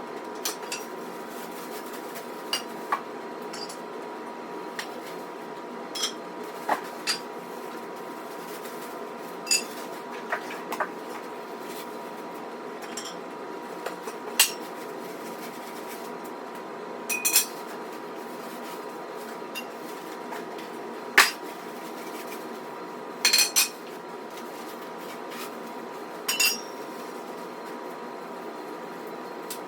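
Irregular metal clinks and knocks from steel squat-rack parts and hardware being handled and fitted during assembly, over a steady hum with a faint constant tone.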